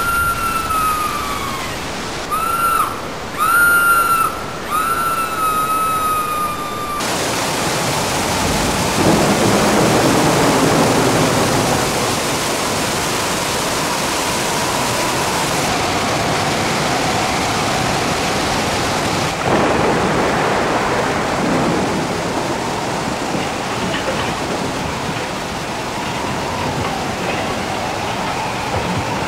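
Iguazu Falls' torrents of water rushing and crashing in a loud, steady roar. The roar changes abruptly a few times. In the first several seconds a high whistled call, falling in pitch, sounds about four times over the water.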